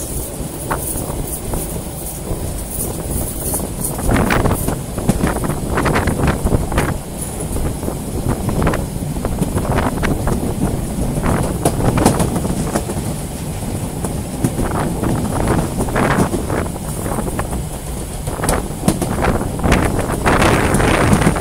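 Narrow-gauge steam locomotive running, heard from on board: a steady low rumble with exhaust chuffs at about one a second, which start about four seconds in, and a louder hiss near the end, with wind buffeting the microphone.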